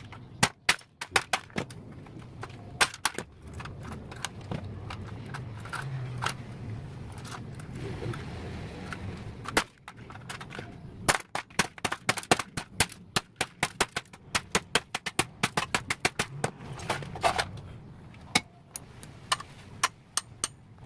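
Many sharp, irregular clicks and clacks of hard parts being handled and pried apart while a broken device is dismantled, densest in the first few seconds and again from about eleven seconds in, over a faint low hum.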